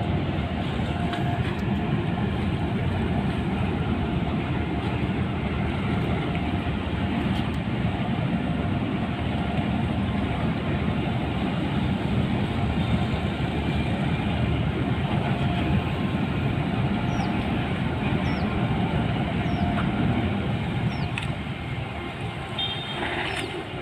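Large ro-ro ferry's engines running during berthing manoeuvres, a steady loud rumbling noise that eases off near the end.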